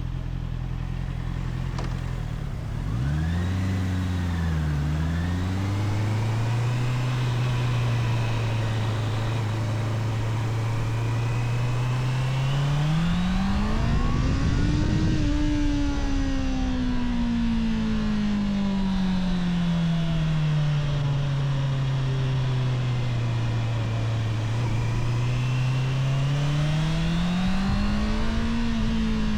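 Stock Honda CBR650R inline-four engine running steadily, then pulling away about three seconds in. Its note climbs to a high-revving peak about halfway, winds down slowly over several seconds, and climbs again near the end.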